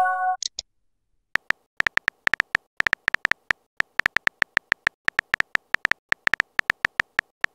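Keyboard tick sounds of a texting app, a quick irregular run of short clicks, several a second, as a message is typed out character by character. A short chime rings out at the very start.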